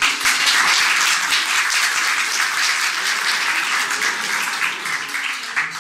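A group of people applauding: a few separate claps just before it begins, then steady clapping from many hands that thins out and stops just before the end.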